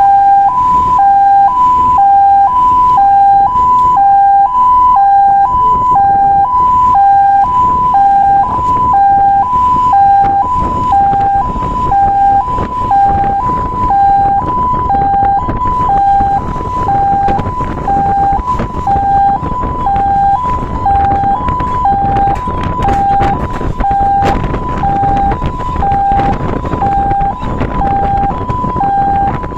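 Fire truck's two-tone siren sounding continuously, switching back and forth between a high and a low note about once a second. The truck's engine and road noise rumble underneath.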